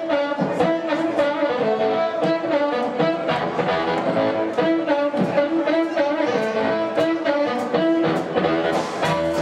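A live blues band: an amplified blues harmonica, cupped against a microphone, plays held and bending notes over drums keeping a steady beat, with electric guitar and double bass.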